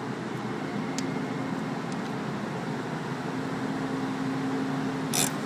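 Steady low hum of running vehicle engines and ship machinery on a ferry's enclosed car deck, heard from inside a car. A short sharp knock stands out just before the end.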